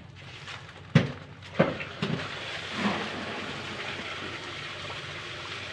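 Harvested milkfish being handled and sorted by hand on a wet concrete floor: a few sharp knocks and wet slaps, the two loudest about a second and a second and a half in, then a steady hiss.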